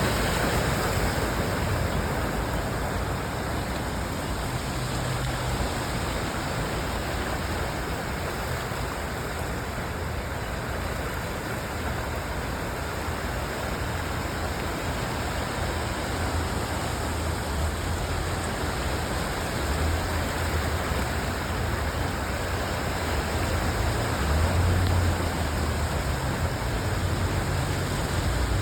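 Steady rush of water over a flooded street, with the low rumble of vehicles passing through it that swells and fades, loudest near the end.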